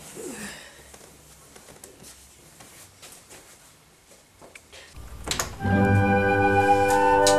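Quiet room sound with a few faint ticks, then about two-thirds of the way through, loud background music of long held chords starts up.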